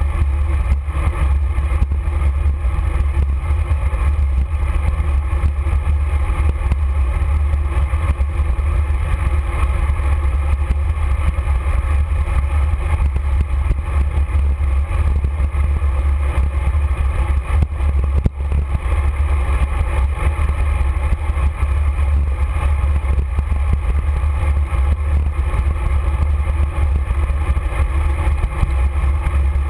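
Steady wind rumble buffeting the microphone of a camera mounted on a moving bicycle, with road and tyre noise mixed in.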